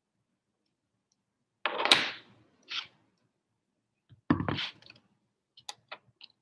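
Lock hardware being handled: a sharp knock about two seconds in, a second knock past the middle, then a few light clicks near the end.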